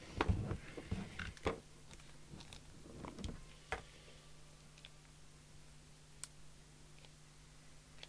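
Light clicks and knocks from handling a CB radio and test gear on a workbench, mostly in the first four seconds, over a low steady hum.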